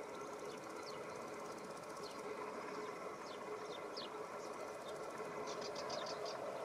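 Corn bunting singing: a few thin, high, falling notes, then near the end a quick jangling trill of about ten dry notes in under a second. A steady hum sits underneath.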